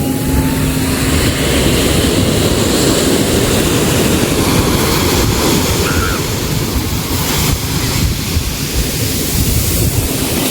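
Sea waves washing in a steady, loud rush, with wind buffeting the microphone.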